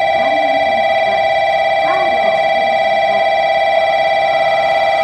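Loud, steady electronic warning tone of several fixed pitches sounding without a break, a platform alarm warning that a train is approaching the station.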